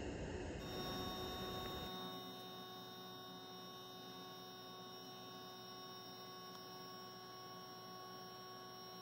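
Faint steady electrical hum made of several fixed tones. It follows a short stretch of broad noise that drops away about two seconds in.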